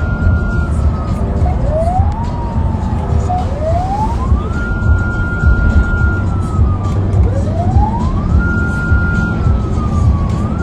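Wailing siren on a convoy escort vehicle, sliding up slowly, holding high, then sinking and rising again several times, over a steady low rumble.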